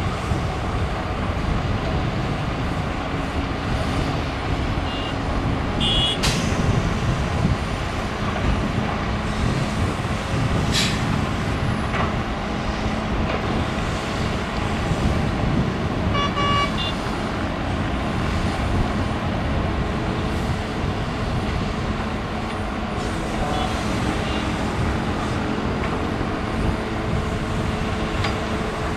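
Diesel engines of a crawler excavator and dump trucks running steadily under load as dirt is loaded. Short horn toots sound around 6 and 16 seconds, and a couple of sharp clanks stand out.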